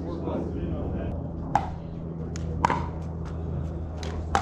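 Pickleball paddles striking a plastic pickleball during a rally: three sharp pops, roughly a second or more apart, with a few fainter ticks between them, over a steady low hum.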